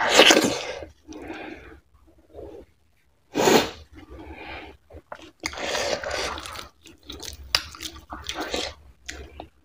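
Close-miked eating by hand: a loud wet slurp as fingers full of soft dhido and oily mutton fat curry are pushed into the mouth, another about three and a half seconds in, then a run of wet smacking, chewing and finger-sucking.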